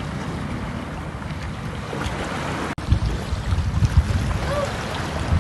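Wind blowing across the microphone over waves washing against a rocky shore. Just under three seconds in the sound cuts out for a moment, and after that the wind buffets the microphone harder in low, uneven gusts.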